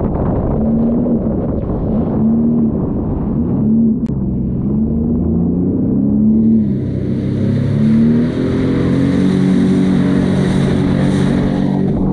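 Sea-Doo jet ski engine, its pitch rising and falling over and over as the throttle is worked. From a little past halfway it settles into a steadier, higher run, with a hiss of spray or wind over it.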